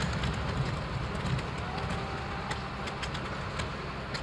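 A low, steady engine rumble under a hiss of background noise, easing off slightly.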